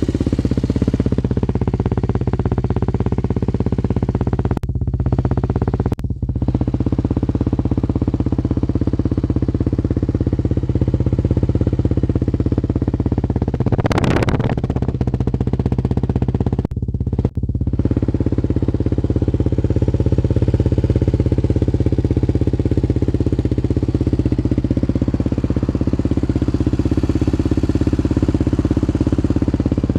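A 1993 Yamaha TT250R's air-cooled four-stroke single-cylinder engine runs at a steady speed through an aftermarket OZ Works silencer. A short rush of noise comes about halfway through, and there are a few brief dips.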